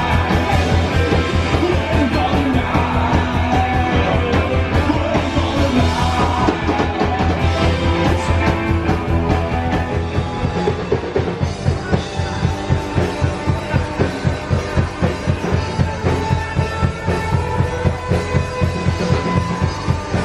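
Punk rock music with a drum kit keeping a steady beat, which becomes more marked in the second half.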